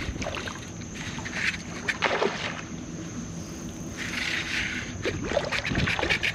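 Fishing reel being wound in against a hooked fish that is pulling hard on the line, with short splashes of water a few times as the fish fights near the surface.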